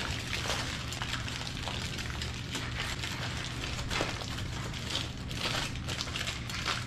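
Aluminum foil crinkling and crackling as it is folded and crimped by hand into a sealed packet, a continuous run of small irregular crackles.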